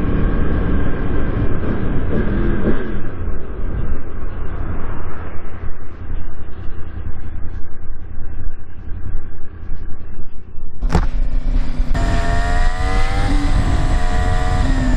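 Motorcycle engine running while riding, under heavy wind rush on the microphone, with a short change in engine pitch a few seconds in. About eleven seconds in, the sound cuts abruptly to another ride, where the engine's tone comes through more clearly, rising slightly and then dipping.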